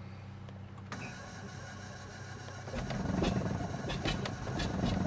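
Cessna 310Q's left engine, a Continental IO-470 six-cylinder, being cranked from the cockpit: the starter engages about a second in, and from near the three-second mark the propeller turns over with an uneven, pulsing rumble as the engine fires raggedly but does not catch and run.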